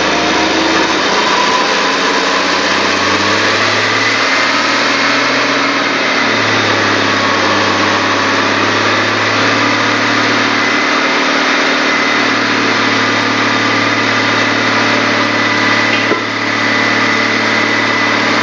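Chevrolet 4.1 L inline-six engine running steadily on wood gas from a gasifier and driving an alternator. Its speed wavers slightly a few times, with a brief dip in level near the end. A thin high whine sits over the engine note.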